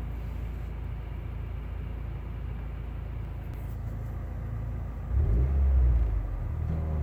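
2013 Mitsubishi Lancer Evolution MR's turbocharged four-cylinder engine running with a steady low rumble; about five seconds in it gets louder and rises in pitch, then settles into a higher, steadier hum.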